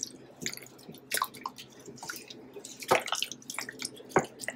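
Raw chicken pieces being mixed by a gloved hand in a thick mustard marinade: wet squelches and smacks at irregular moments, with a few sharper clicks.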